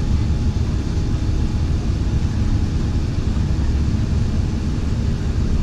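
Airbus A380-861's engine and airflow noise heard inside the passenger cabin: a steady low rumble with an even rush over it.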